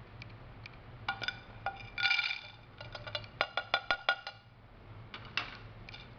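Filled capsules tipped out of a plastic capsule-filling tray onto a ceramic plate: a short rush of clattering about two seconds in, then a quick run of sharp clicks and clinks as the last capsules drop and the tray is lifted away.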